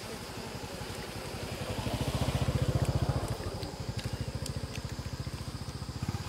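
Small motorcycle engine running as it passes on the road, a fast, even low putter that builds to its loudest about two and a half seconds in, then eases off but keeps going.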